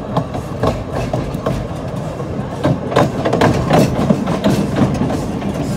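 Narrow-gauge railway carriage running along the track, heard from inside the open-sided coach: a steady rumble with irregular clicks and knocks from the wheels and couplings, growing busier about halfway through.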